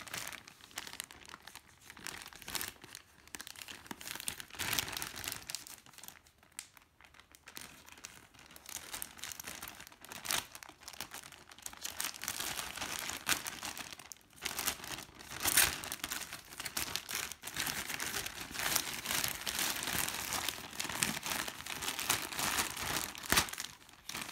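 Plastic courier mailer bag crinkling and rustling in the hands as it is slit and torn open with a small pocket knife, the package then pulled out of it. The crackling is irregular, growing busier and louder in the second half.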